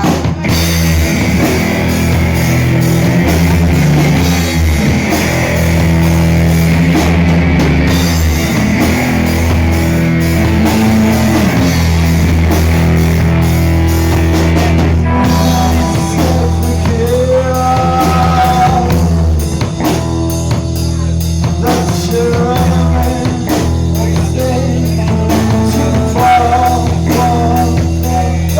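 Rock music with guitar and drums, played continuously at a steady loud level.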